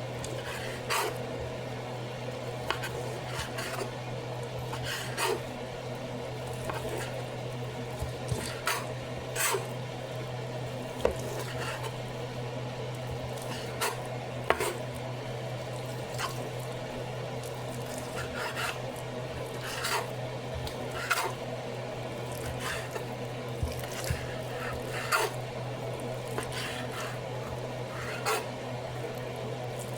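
A knife cutting cooked bacon on a cutting board, with sharp, irregular taps and scraping every second or two over a steady low hum.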